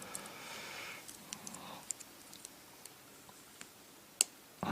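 Scattered small metallic clicks and taps of tools and lock parts as an American 1100 padlock's core is worked out after a failed shim attempt. A sharper click stands out about four seconds in.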